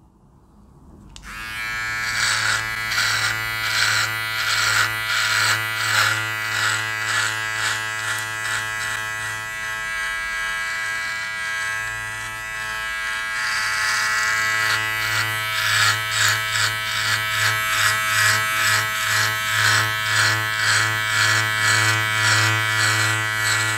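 Powertec TR-758 cordless beard trimmer switched on about a second in, its motor humming steadily while the blade cuts through beard hair in repeated short strokes, about two a second.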